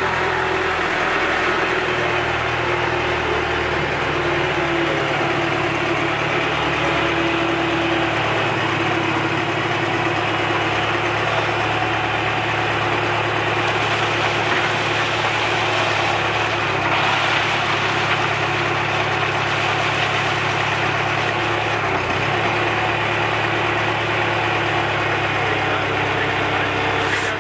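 Tractor front-end loader's engine running steadily, its speed shifting up and down several times as it works the loader arms to lift a bucket of coal over a steam locomotive's tender.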